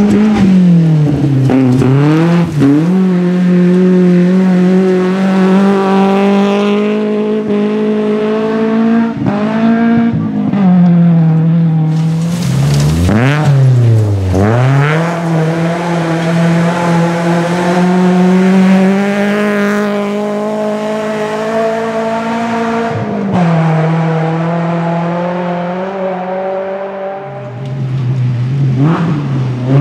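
BMW rally car's engine at full throttle on a stage, revving up through the gears with sharp drops on upshifts and lifts for corners. The car passes close about halfway through, then pulls away, accelerating hard.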